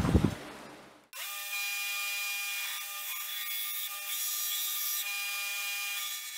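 Belt grinder running with a steady whine while a forged steel kukri blank, made from a farrier's rasp, is held against the abrasive belt to rough in its profile, adding a grinding hiss. The grinder sound starts about a second in.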